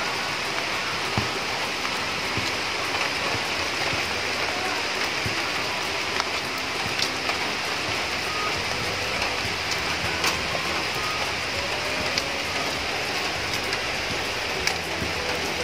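Steady rain falling: a constant hiss with a few sharper ticks of single drops now and then.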